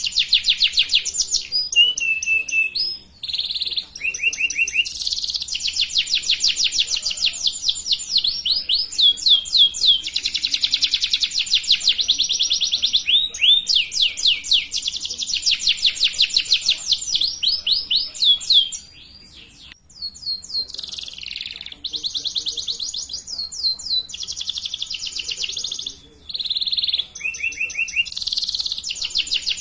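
Domestic canary singing a long song of rapid trills, each phrase a fast run of the same repeated note, changing from phrase to phrase, with a short pause about two-thirds of the way through. It is a canary tutor song ('pancingan') of the kind played to young canaries learning to sing.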